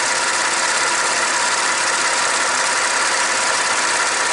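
2016 Ford F-150's 2.7-litre EcoBoost twin-turbo V6 idling steadily.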